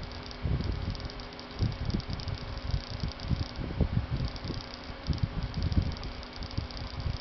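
A small DC motor running, with a fine, crackly high buzz that drops out for about half a second near the middle and then comes back, over irregular low rumbles.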